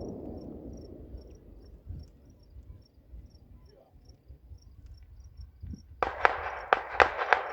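Faint, evenly repeated high insect chirping over a low fading rumble. About six seconds in, fireworks break into a rapid string of sharp crackles and pops.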